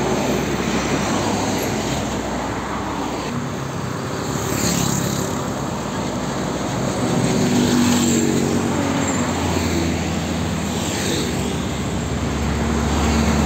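Passing road traffic: heavy diesel trucks running by with a steady engine drone, mixed with cars and motorcycles and tyre noise. A close vehicle sweeps past about four seconds in and again near the end, and a deeper truck rumble builds through the second half.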